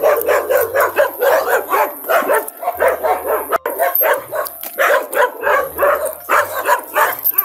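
A dog barking over and over in quick succession, several barks a second without a break.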